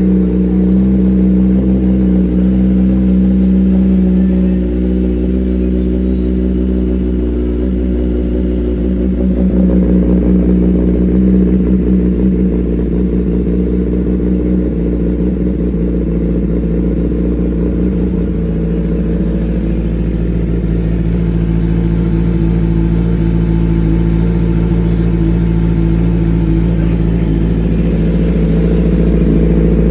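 Kawasaki ZX-10R's inline-four engine running steadily through an aftermarket AR exhaust, with a deep, even exhaust note. The note shifts slightly a couple of times but is never revved hard.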